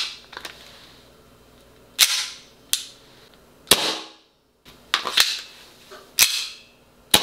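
Taran Tactical Pit Viper gas blowback airsoft pistol, a Hi-Capa running on green gas, firing: three sharp snaps of the slide cycling, each trailed by a short hiss, with lighter metallic clicks between them. The slide locks back when the magazine runs empty.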